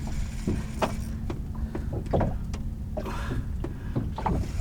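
Small fishing boat with a steady low rumble and scattered irregular knocks and clicks of gear being handled while a hooked snapper is played up from the bottom.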